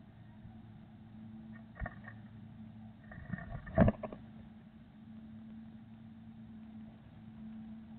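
Adult blue tit moving about inside a wooden nest box: a few sharp knocks and scrabbling against the wood, the loudest just before halfway, over a steady low hum.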